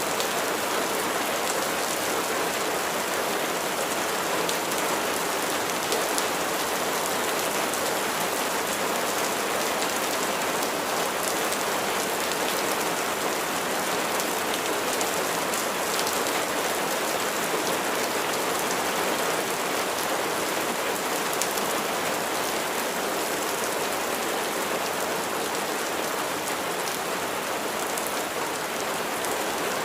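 Steady rain falling and pattering on surfaces, a dense even hiss with fine drop ticks and no letup.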